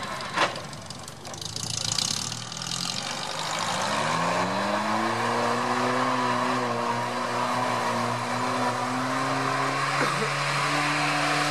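UAZ off-roader's engine pulling through deep muddy water. About four seconds in, its revs climb and then hold steady under load, with a brief dip near the end, over a steady wash of churning water.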